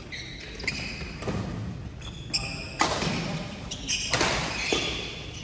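Badminton rally: several sharp hits of rackets on the shuttlecock, with players' footsteps on the wooden court, echoing in a large sports hall.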